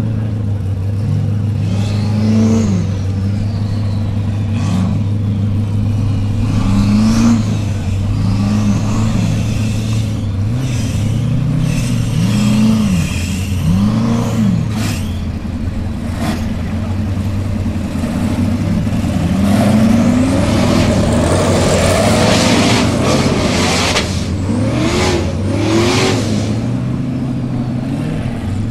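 Formula offroad car's engine revving up and falling back again and again in short bursts, over a steady low hum. About two-thirds of the way through comes a louder rush of noise with sharp cracks.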